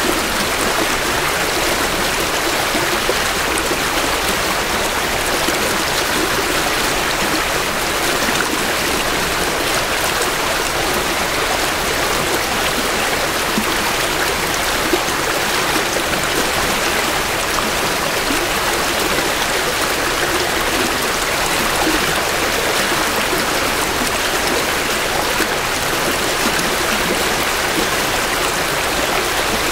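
Creek water flowing steadily over rocks, a continuous rushing and babbling of spring runoff close by.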